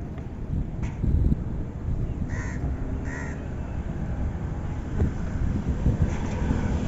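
A crow cawing twice, the two calls under a second apart, over a steady low rumble.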